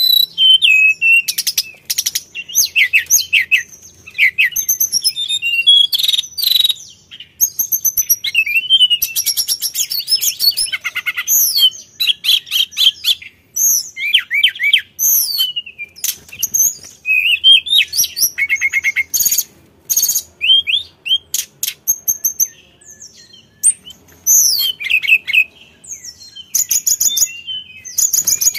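A hill blue flycatcher (sulingan) singing in full, continuous song: rapid, varied, high-pitched whistled phrases and slurred sweeps, broken by fast trills of repeated notes and brief pauses between phrases.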